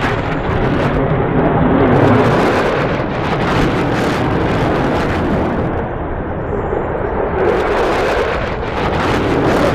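Single-engine fighter jet flying a display pass, a loud rushing engine noise that swells about two seconds in and again near the end.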